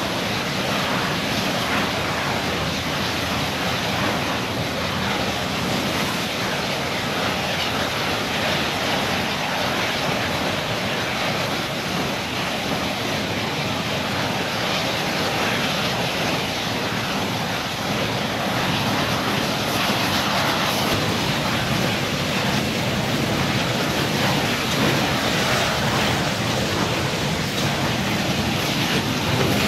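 Steady rushing noise of a propane (LPG) fire burning at a storage tank and its filling unit, getting a little louder past the middle.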